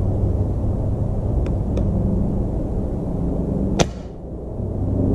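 An Artemis M22 PCP air rifle with a built-in baffled shroud is dry-fired with no pellet loaded, giving one sharp, short shot about four seconds in. A steady low hum runs underneath.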